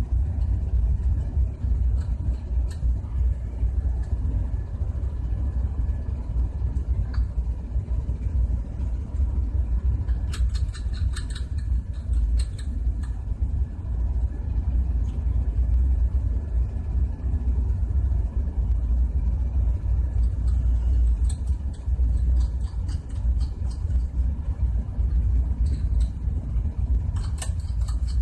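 A steady low rumble throughout. Bursts of light metallic clicking come about ten to thirteen seconds in and again near the end, as the metal parts of a compressor discharge valve (valve plate, spring, washer, nut) are handled and fitted by hand.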